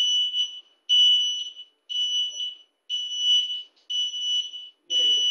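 A motorized supermarket trolley's reverse warning beeper sounds while the trolley runs in reverse. It is a high, steady electronic tone that repeats about once a second, each beep lasting over half a second.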